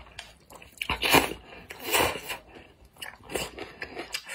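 A person slurping wide alkaline noodles from spicy broth, with two loud slurps about a second and two seconds in. Softer wet chewing follows.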